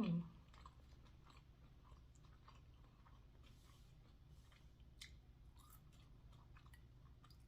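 A person chewing fast food with the mouth close to the microphone: quiet, scattered wet clicks and small crunches. It opens with a brief low hum that drops in pitch, and one crunch about five seconds in stands out.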